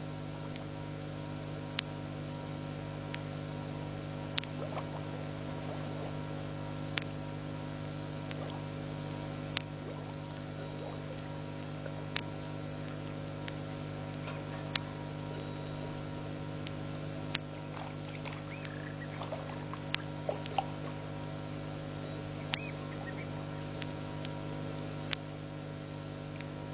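Frogs calling at a pond at night: one repeats a short high pip about four times every three seconds, with a sharp click every two and a half seconds, over a steady low hum.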